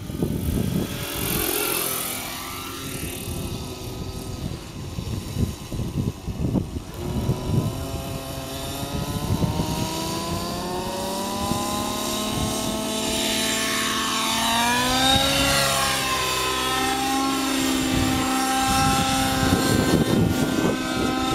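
Nitro glow engine and rotor of a Thunder Tiger Raptor 90 G4 RC helicopter running, the engine note rising and falling with throttle. About two-thirds of the way through the pitch climbs steeply and then holds higher.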